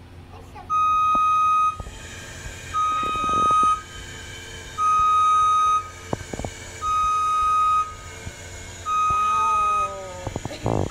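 JLG boom lift's motion alarm sounding as the platform lowers: a steady one-pitch beep about a second long, repeating about every two seconds, over a steady low hum.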